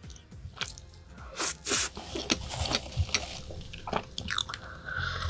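Close-miked mukbang eating sounds: wet mouth smacks and irregular sharp clicks as a spoonful of creamy dessert is eaten, then sipping from a mug after about four seconds in.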